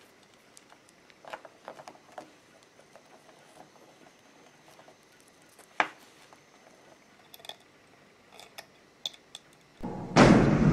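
Faint clicks and rustles of hands handling capacitor leads and pushing spade connectors onto a speaker's terminals, with one sharper click about six seconds in. Near the end a loud, steady low sound cuts in suddenly.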